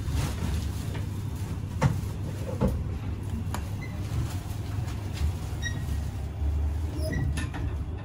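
Passenger elevator running, a steady low rumble with a couple of sharp knocks about two seconds in and short high beeps near the end.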